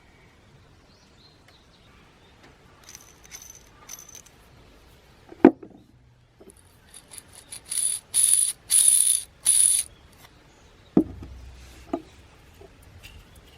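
Small metal transmission parts clinking and rattling as they are handled, with a sharp knock partway through and two more near the end. In the middle come four short bursts of hiss, each about half a second long, with a high whistle in them.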